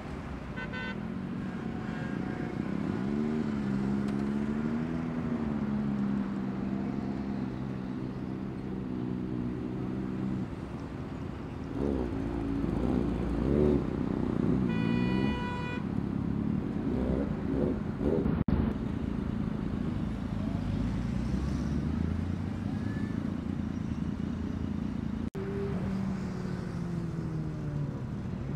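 Sport motorcycle engines idling and revving in road traffic, with pitch rises and wavers as throttles are blipped. A vehicle horn honks for about a second halfway through.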